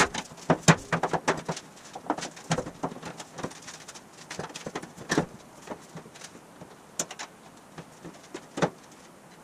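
Aluminum boat-tail body shell being lifted and set down over the speedster's frame and fuel tank: irregular clanks, taps and scrapes of thin sheet aluminum on metal. The knocks are busiest in the first couple of seconds, then sparser, with a few sharper ones about five seconds in and near the end.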